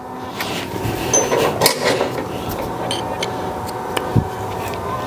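Metal hand tools and parts clinking, knocking and scraping during work on a motorcycle's triple tree, with a steady hum underneath.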